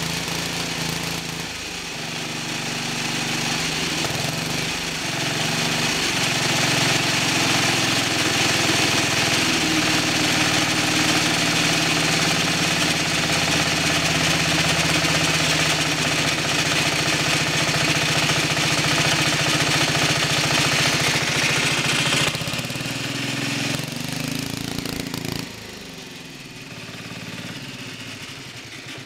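Air-cooled Lombardini diesel engine on a converted Ransomes lawn mower, running steadily. It gets louder for a long stretch, steps down about 22 seconds in, and drops to a quieter run a few seconds later.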